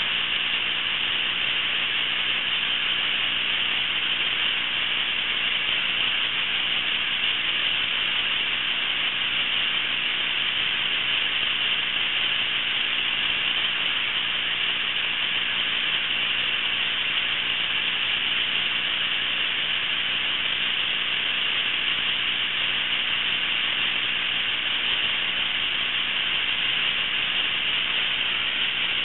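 Steady electronic hiss with a faint low hum under it, unchanging throughout: the noise floor of a security camera's DVR audio channel with no real sound on it.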